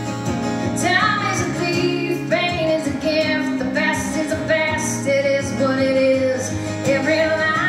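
A woman singing a slow country ballad over her own acoustic guitar, holding long notes.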